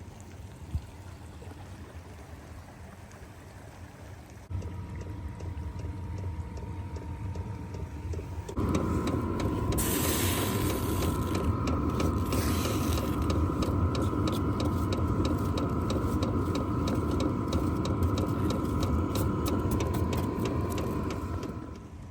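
Diesel air heater running, its blower hum and whine stepping up twice to a louder, higher setting, with rapid clicking from about ten seconds in; the sound drops back near the end.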